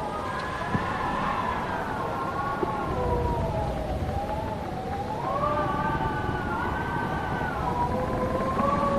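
Howling wind: several wavering whistling tones that slowly rise and fall together, over a low steady rush of wind.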